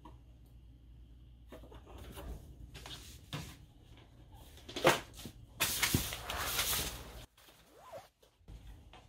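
Kittens scampering and scuffling on a wooden floor: scattered light knocks and scrabbling, a sharp knock about five seconds in, then a couple of seconds of rustling.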